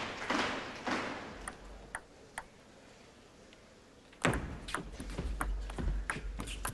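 Celluloid table tennis ball: a few light isolated clicks, then about four seconds in a sharp crack of the serve and a quick series of clicks as the ball hits bats and table in a fast rally. The last of the applause for the previous point dies away in the first second.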